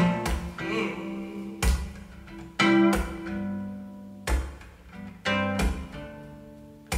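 Indie-folk song in an instrumental passage between sung lines: guitar and bass playing, punctuated by sharp percussive hits about once a second.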